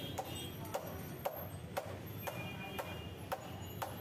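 Sharp, evenly spaced clicks or knocks, about two a second, over a low steady background hum.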